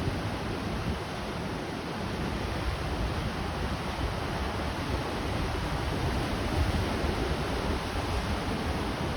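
Pacific Ocean surf washing and breaking on a rocky shore, a steady rushing noise, with gusty wind rumbling on the microphone.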